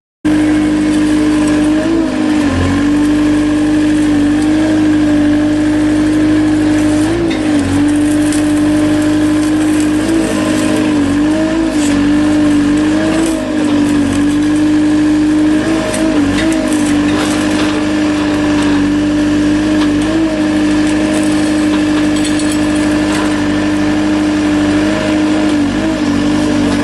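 A machine engine running steadily and loudly with a constant hum, dipping briefly in pitch every few seconds as if momentarily loaded.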